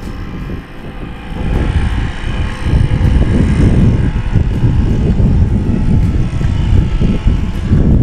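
Wind buffeting the microphone: a heavy, uneven low rumble that builds over the first few seconds and then stays loud.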